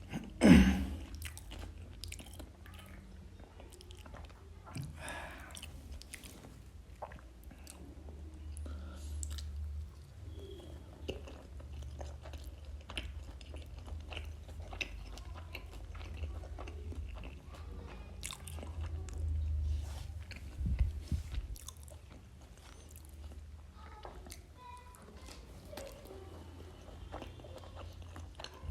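A person chewing and biting food close to the microphone, a steady run of small mouth clicks and crunches. There is a thump about half a second in.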